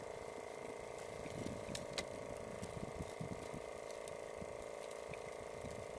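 Steady mechanical hum, most likely a boat engine running, with scattered light clicks and knocks on the wooden boat.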